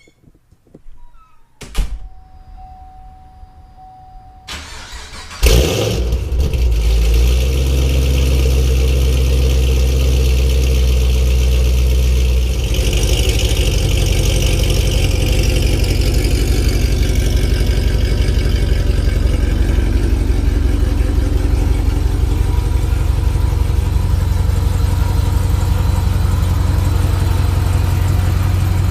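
Supercharged 6.2-litre LSA V8 of a 2015 Camaro ZL1, with long-tube headers and hollowed cats, starting up with a loud burst about five seconds in and then settling into a steady idle. Before it starts there is a thump and a short steady electronic tone.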